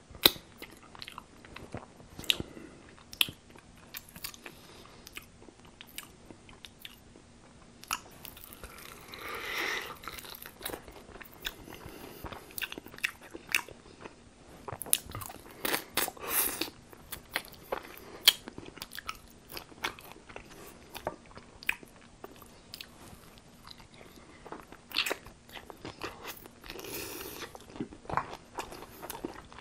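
Close-miked eating of tempura-battered fried chicken: crisp batter crunching under the teeth, then steady chewing, with sharp irregular crunches throughout.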